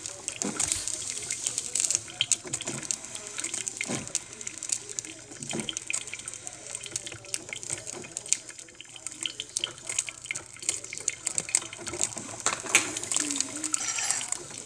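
Cuisinart drip coffee maker brewing: water gurgling and sputtering as it heats, with a steady hiss and many irregular little crackles and pops.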